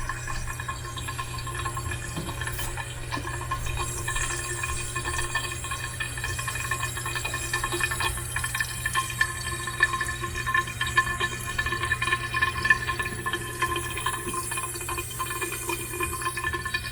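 Household water pipe with water rushing through it, giving off a steady whine made of several held tones.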